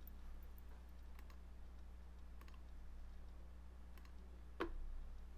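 A few faint computer mouse clicks, the last and loudest near the end, over a steady low hum.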